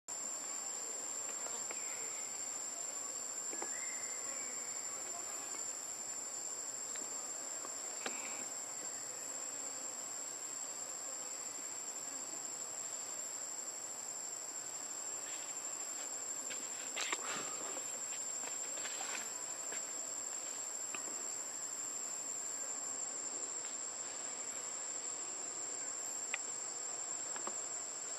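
Steady, high-pitched drone of an insect chorus, one unbroken shrill tone, with a few faint clicks and taps.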